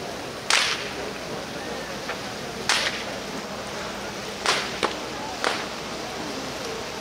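Large bonfire of a burning wooden boat and heaped joss paper, a steady rushing noise of flames broken by five or six loud sharp cracks at irregular intervals.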